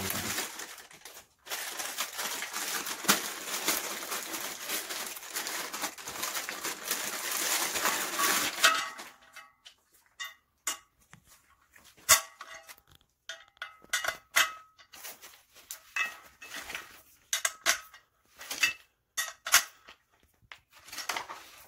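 Plastic bag wrapping crinkling for about eight seconds as it is peeled off chair casters. After that come scattered sharp clicks and knocks of the hard plastic casters being handled and pushed into the legs of the chair's star base.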